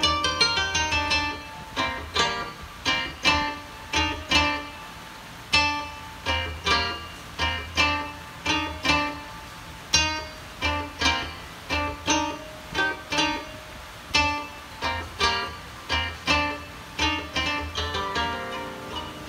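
Solo Japanese koto played live: plucked notes ringing and dying away, a quick run of notes at the start, then single plucks at about two a second.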